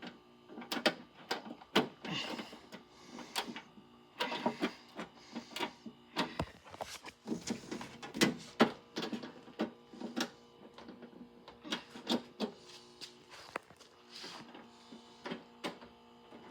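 Fire alarm control panel being handled and opened: irregular clicks, knocks and rattles of its door and parts.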